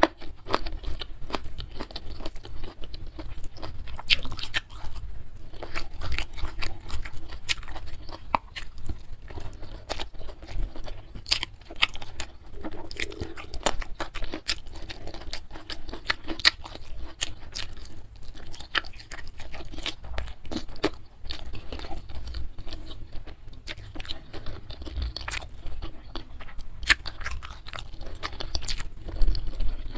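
Close-miked chewing and crunching of a mouthful of food, with dense wet mouth clicks and crackles throughout.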